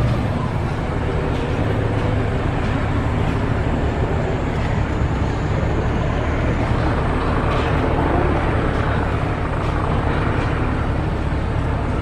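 Engine of heavy machinery running steadily, a low hum under a wash of outdoor street noise, easing slightly in level near the start.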